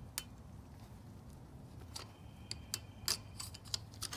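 Scattered sharp clicks and taps of bicycle parts and tools being handled, about ten of them at irregular spacing, coming thicker in the second half.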